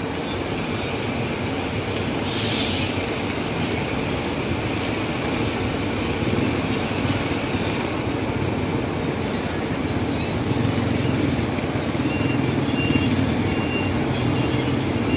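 Traffic on a rain-soaked street: jeepney and motorcycle-tricycle engines running, getting louder near the end. There is a short hiss about two seconds in, and a faint, intermittent high beep near the end.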